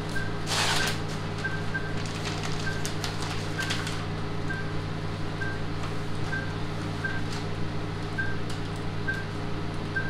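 Patient monitor giving a short, high pulse beep a little less than once a second, over a steady low hum of equipment. Plastic tubing and drapes are being handled, with a burst of rustling about half a second in and light clicks over the next few seconds.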